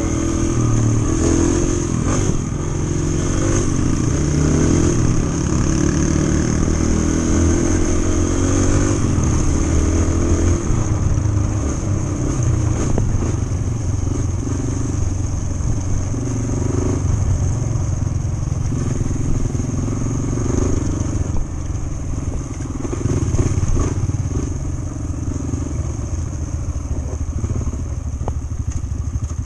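Yamaha TT-R125 trail bike's single-cylinder four-stroke engine running while being ridden, the engine note rising and easing with the throttle, heard close up from the bike's own handlebars.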